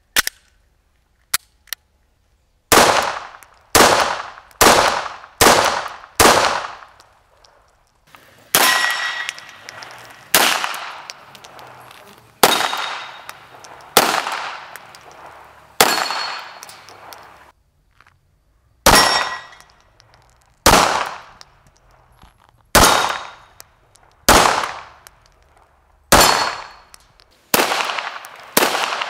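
CZ P-09 9 mm pistol firing a string of shots: about five in quick succession, then single shots every second or two, with a ringing tone lingering after several of them. A few small clicks come before the first shot.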